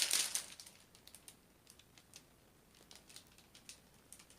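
Light crinkling and clicking of a diamond-painting canvas and its plastic film being handled, loudest in the first half second, then only faint scattered ticks.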